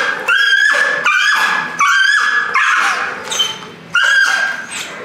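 A Dutch shepherd puppy barking at a bite pillow during bite training: about five sharp, high-pitched barks and yips in quick bursts, with a short pause before the last one.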